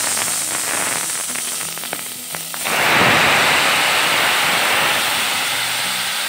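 Marinated chicken pieces sizzling and spattering as they go into hot oil in a pot. About two and a half seconds in the sizzle jumps much louder as the rest of the chicken goes in, then carries on as a steady frying hiss.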